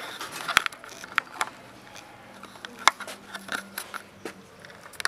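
Handling noise from a phone being moved about: scattered clicks, taps and rubbing on the microphone, with a couple of sharper knocks.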